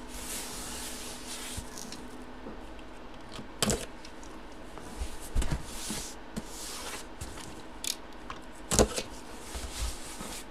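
A knife blade slitting the packing tape on a cardboard box, a scratchy rasp over the first couple of seconds, then several sharp knocks as the box is turned and handled, the loudest near the end.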